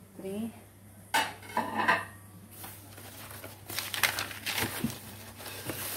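Porcelain plates clinking against each other as they are lifted out and handled, a few sharp clinks in the first two seconds, followed by rustling of the plastic packing wrap with occasional light knocks.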